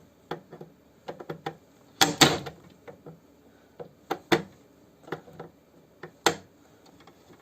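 Pliers clicking and knocking against the metal wiper linkage of a Nissan Qashqai while working at a stubborn retaining ring, in irregular sharp clicks with louder clanks about two, four and six seconds in.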